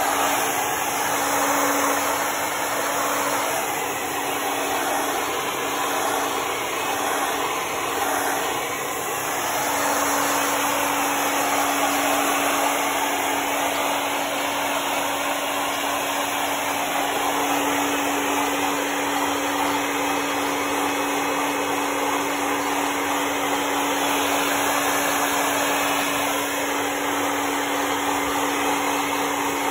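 Handheld hair dryer blowing steadily on a dog's coat: a continuous rush of air over a constant motor hum.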